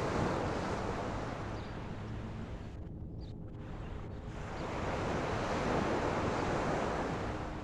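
Ocean waves washing in against the shore, two surges of surf about five seconds apart.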